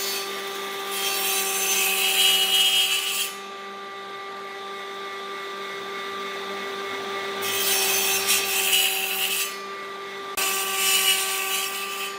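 A power tool running with a steady whine, biting into wood in three loud stretches of rasping noise, each lasting two to three seconds, with quieter stretches of the tool running free between them.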